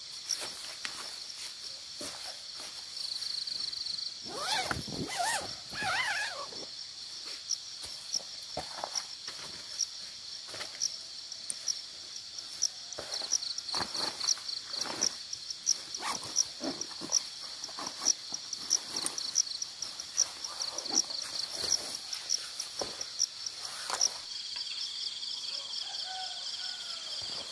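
Night insects chirping in a steady high chorus, with frequent rustles and clicks of camping gear being handled. About five seconds in, an animal call rises and falls for about two seconds over the chorus.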